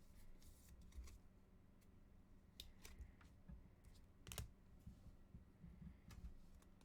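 Near silence with a few faint clicks and light handling noises from trading cards being flipped through and set down, the sharpest click about four and a half seconds in.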